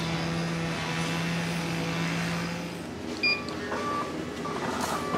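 A steady machine hum that cuts off about three seconds in, then a short high electronic beep followed by faint beeping tones and small clicks.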